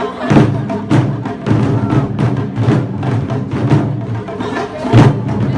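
Japanese festival music with drum strikes and wood-block-like percussion over a continuous low pitched layer.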